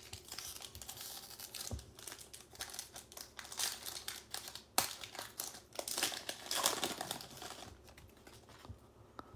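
Foil wrapper of a football trading card pack being torn open and crinkled by hand, with the cards rustling as they are pulled out; irregular crackling that dies down near the end.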